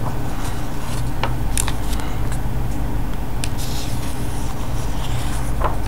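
Paper pages of a printed comic book being handled and turned, with soft rustles and a few light ticks over a steady low hum.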